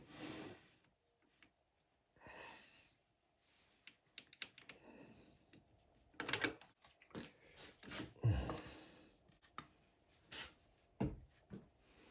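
Irregular light clicks, taps and brief rustles of small metal tools being handled as a threading die is set up on a lathe, with the loudest knocks about six and eight seconds in.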